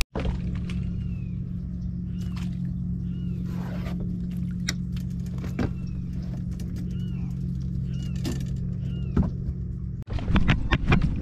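Steady engine running at an even speed, with short rising-and-falling bird chirps repeating over it. It stops abruptly about ten seconds in.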